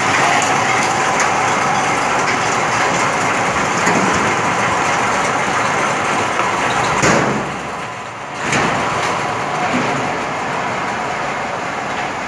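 An ice crusher's motor runs steadily while crushed ice slides down its steel chute into a sack. About seven seconds in there is a knock, and the noise dips briefly.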